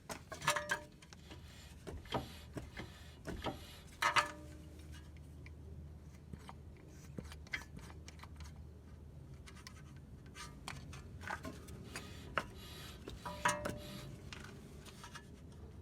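Scattered clicks, taps and short rattles of handling, loudest about half a second in, around four seconds in and near the end, over a faint steady low hum.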